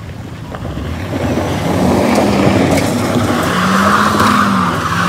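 Suzuki Ertiga MPV's engine revving hard on a steep loose dirt climb, its note rising and falling several times as the front tyres spin and scrabble on the gravel. A loud hiss of spinning tyres on loose dirt builds from about a second and a half in: the car is losing traction on the slope.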